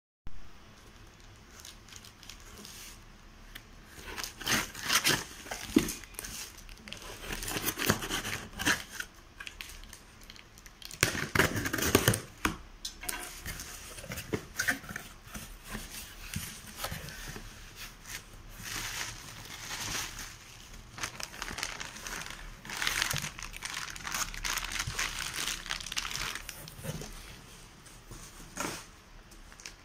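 A cardboard parcel being cut open with a knife and unpacked: packing tape tearing and cardboard flaps scraping, then plastic-wrapped packs of baby wipes crinkling as they are handled. The handling comes in irregular bursts, loudest a few seconds in and again around the middle.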